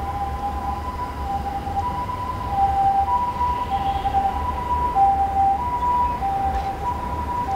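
Two-tone emergency-vehicle siren, the Japanese ambulance's 'pee-paw', alternating steadily between a higher and a lower note about every half second, heard at a distance over low wind rumble on the microphone.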